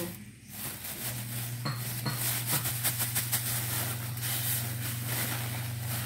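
Thin plastic carrier bag crinkling and rustling as it is handled, gathered up and tied shut. A steady low hum starts about a second in.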